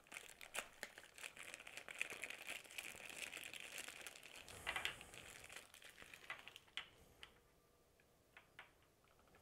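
Thin plastic packaging bag crinkling as Philips Sonicare brush heads are handled and pulled out of it. Near the end the crinkling stops and a few light clicks follow as the plastic brush heads are set down on a table.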